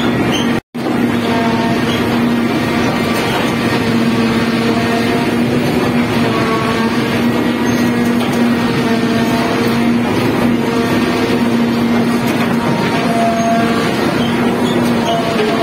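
Epiroc Häggloader tunnel mucking machine running steadily, with a constant hum over rough mechanical noise as its backhoe arm loads blasted rock onto its conveyor. The sound drops out for an instant under a second in.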